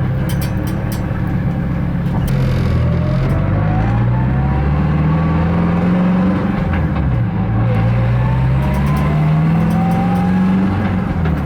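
Turbocharged Scion FR-S's flat-four engine pulling under acceleration. Its pitch climbs steadily twice, falling back about seven seconds in between the two climbs.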